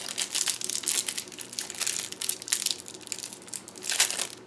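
Packaging crinkling and crackling in the hands as the camera's small opening pick is worked out of it. It is a dense run of quick small crackles, loudest about four seconds in.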